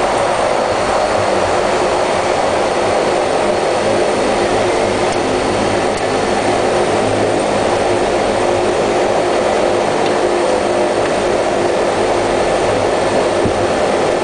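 Dash 8 turboprop engines and propellers heard from inside the cockpit: a steady, loud drone of engine and airflow noise with a low, even propeller hum.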